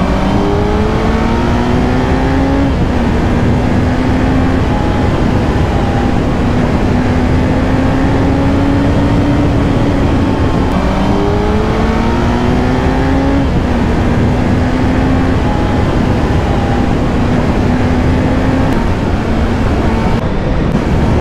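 Kawasaki Z900's inline-four engine accelerating hard at speed, with heavy wind rush on the microphone. The engine note climbs in each gear and drops at upshifts about three seconds in, around ten seconds and again around thirteen seconds.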